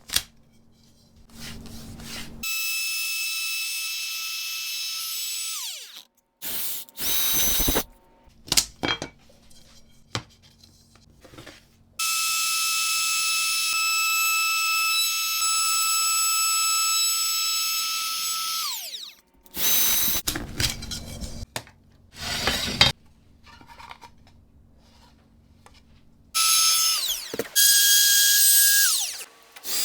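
Small high-speed electric power tool running in several long runs with a steady high whine, each falling in pitch as the motor spins down, with short louder bursts of cutting or drilling in between.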